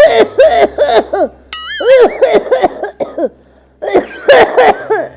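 A woman's loud, hacking coughing fit in three runs of several quick coughs each: the persistent cough of the ailing mother-in-law character.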